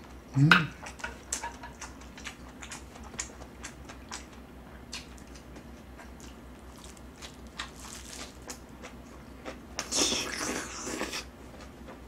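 Close-miked chewing of cabbage kimchi and fried rice, with many small wet mouth clicks and smacks. A short hummed 'mm' comes about half a second in, and a louder breathy noise lasts about a second near the end.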